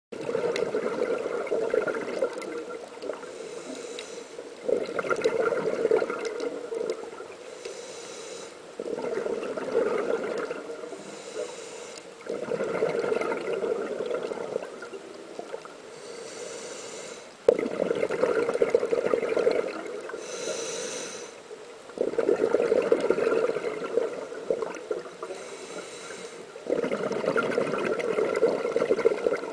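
Scuba diver breathing through a regulator underwater. Each breath is a short hiss on the inhale, followed by about two seconds of bubbling exhaust on the exhale, seven breaths at one every four to five seconds.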